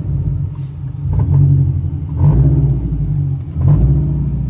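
Toyota 86's flat-four engine with racing headers running at low rpm, its level swelling and falling about every second. It carries a rattle from the left side that the owner suspects is an exhaust leak at the headers.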